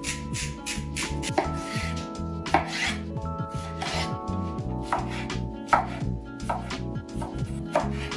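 Chef's knife cutting peeled eggplant on a wooden cutting board: irregular sharp knocks of the blade striking the board as the slices are cut into strips and cubes.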